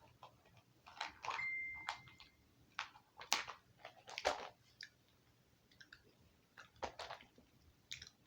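A person chewing a hard Ice Breakers cinnamon mint: faint, scattered clicks and crunches of the mint against the teeth, with mouth sounds.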